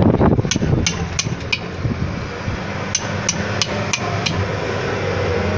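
Knife being driven through a seer fish on a wooden chopping block by striking the back of the blade: a heavier thump at the start, then sharp knocks about three a second in two runs of four with a pause between.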